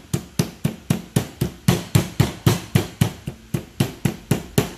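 Metal meat mallet pounding thin slices of raw meat on a plastic cutting board, a steady run of blows at about three a second, tenderising the meat.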